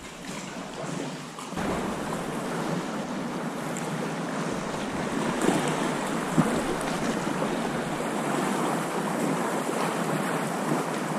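Choppy sea water washing and slapping around a sea kayak's hull, with wind buffeting the microphone. It is quieter for about the first second and a half, then steady, with a couple of sharper slaps about halfway through.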